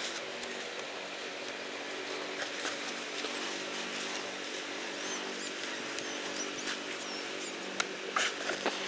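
Outdoor ambience with a steady low hum, faint high bird chirps now and then, and a few short sharp knocks near the end.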